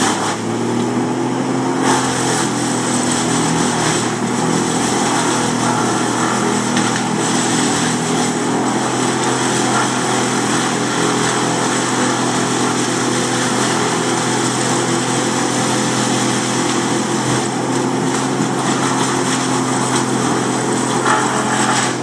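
Large engine of tree-removal equipment running steadily at a constant speed, with a few brief knocks now and then.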